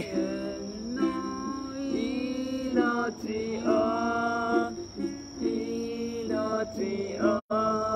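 A man singing a slow Japanese Christian worship song in long held notes, accompanied by a plucked stringed instrument. Near the end the sound cuts out completely for a split second.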